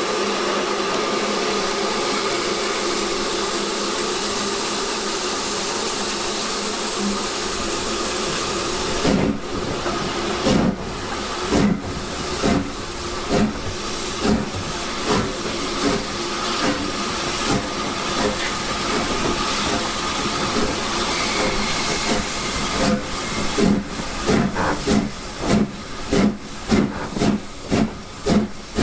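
Southern Railway S15 class 4-6-0 steam locomotive No. 506: a steady hiss of steam, then about nine seconds in it starts away, its exhaust beats slow at first and quickening steadily to about two a second near the end.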